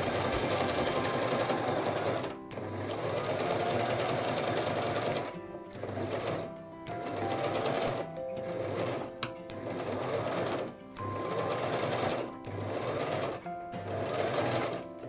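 Domestic electric sewing machine running, sewing a reverse stitch with the reverse button held down. It stops and starts in short runs of one to two seconds.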